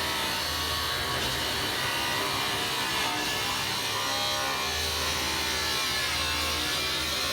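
A power tool cutting, running steadily without a break.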